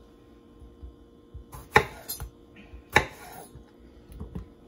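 Chef's knife cutting tomatoes on a bamboo cutting board: two sharp knocks about a second apart, with lighter clicks and taps between and after.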